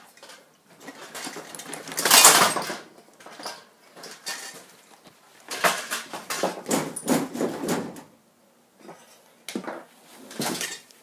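Irregular metallic clanks, clinks and scrapes of tools and parts as a moped's front wheel is taken off. The loudest clatter comes about two seconds in, a busier run of clinks follows in the middle, and two more knocks come near the end.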